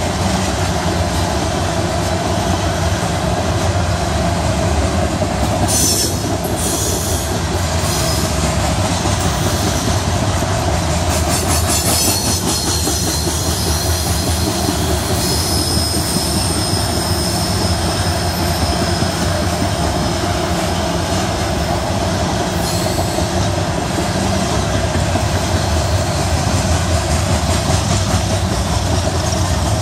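Loaded coal hopper cars of a long freight train rolling steadily past, a loud, continuous rumble of wheels on rail. High-pitched wheel squeal comes and goes over it: short squeals about six and eleven seconds in, and a held squeal for several seconds from about fifteen seconds in.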